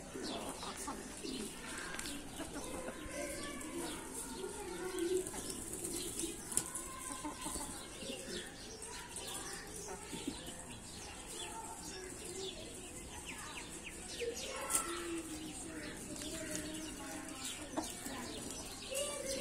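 Faint calls of pigeons and chickens in a yard: short, low, wavering cooing and clucking sounds, with scattered light ticks.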